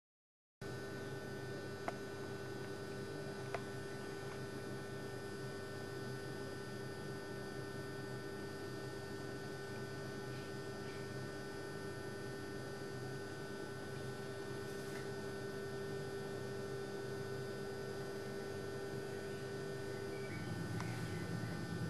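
Steady electrical hum made of several fixed tones over a faint hiss, cutting in after a moment of silence. Two faint clicks come a couple of seconds in, and near the end the main tone drops a little lower.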